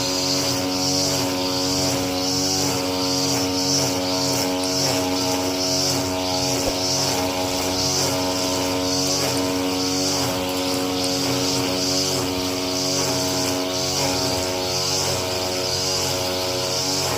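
Lawn mower engine running steadily at full throttle, its note wavering in a regular pulse, with a high whirring hiss from the cutting.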